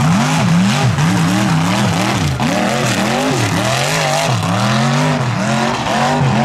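Mud racing buggy's engine revving hard up and down, its pitch rising and falling about twice a second as the throttle is blipped.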